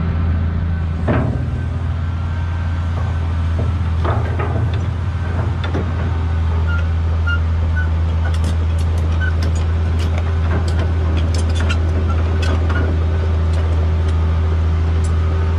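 Cat 345B hydraulic excavator's diesel engine running steadily with a deep, even hum, with a few sharp clunks as the boom and bucket swing.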